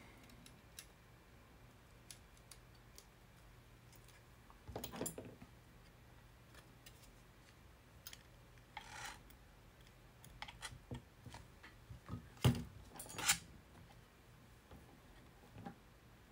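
Scattered faint clicks and knocks of a MacBook Pro logic board being handled and its display cable connectors pressed into place, with a few louder knocks about five, nine, twelve and thirteen seconds in, over a faint low hum.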